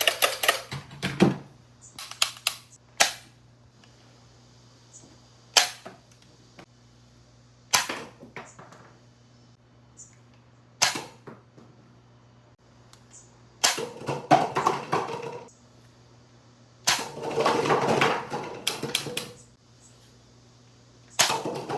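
Toy blaster being fired: sharp single snaps every few seconds, with two longer stretches of rapid clattering clicks in the second half.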